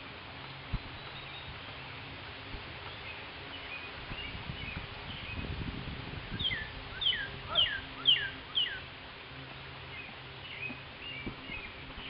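A small bird calling: a run of about five quick down-slurred chirps a little past halfway, with scattered softer chirps before and after, over steady outdoor background noise.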